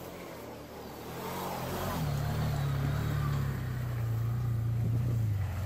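An off-road vehicle's engine running steadily, coming in and getting louder about two seconds in, its pitch dropping slightly partway through.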